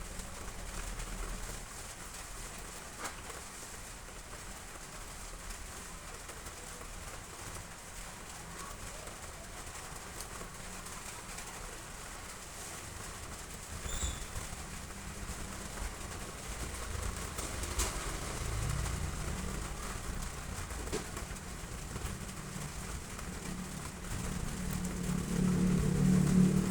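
Heavy rain falling steadily, an even hiss of drops, with a low hum that swells louder near the end.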